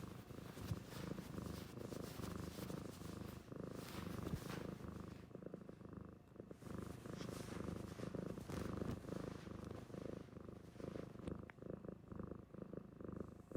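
A domestic cat purring close to the microphone, a steady low purr.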